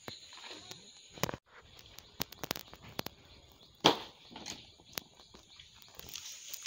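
Large banana leaves rustling and snapping as they are handled and cut from the plant with a sickle, with scattered sharp cracks; the loudest comes just before four seconds in.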